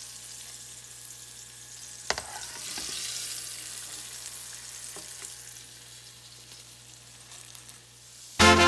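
Battered calamari sizzling as it fries in shallow oil, with a metal mesh strainer clinking against the pan, most sharply about two seconds in and again about five seconds in. Music starts abruptly right at the end.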